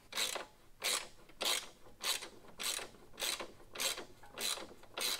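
Ratchet wrench clicking in steady back-and-forth strokes, about nine evenly spaced bursts a little over half a second apart, tightening a bolt into a nylon lock nut.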